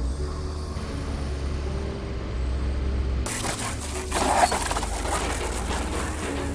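Shredder sound effect: a low, steady machine drone, joined about three seconds in by a loud grinding, crunching noise as material is shredded.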